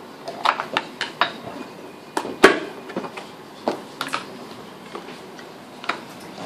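Plastic food containers and their lids clicking and knocking as they are opened, handled and set down on a wooden chopping board: a string of irregular sharp knocks, the loudest about two and a half seconds in.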